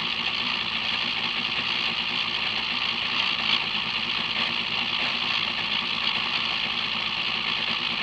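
Steady engine noise, even in level and unchanging in pitch.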